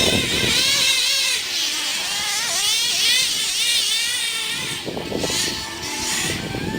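Picco .28 nitro engine with an OFNA 086 tuned pipe in a Mugen MBX5T RC buggy, screaming at high rpm with its pitch rising and falling repeatedly as the throttle comes on and off. The clutch bearing is blown.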